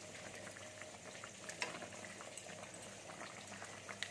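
Potato and pea curry simmering in a metal pan, a faint steady bubbling, with a couple of light clicks as a steel spatula touches the pan.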